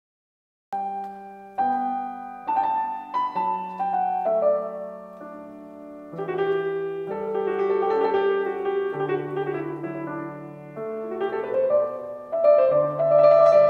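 Yamaha grand piano played, starting about a second in: a run of held chords and melody notes struck one after another.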